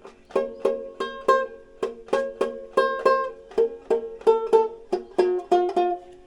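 Stromberg Cuppophone banjo being played: a run of bright plucked notes, about three to four a second, that stops and rings out just before the end.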